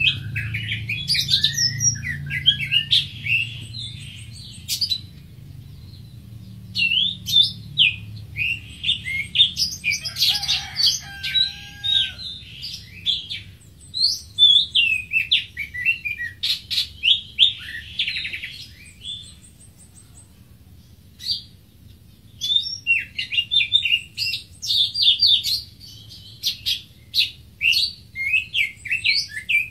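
Greater green leafbird singing: bursts of quick, varied high whistles and chirps with sliding notes, broken by pauses of a few seconds.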